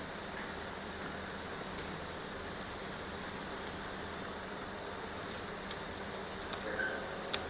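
Steady background hum and hiss of workshop room noise, with a few faint clicks, one about two seconds in and a couple near the end.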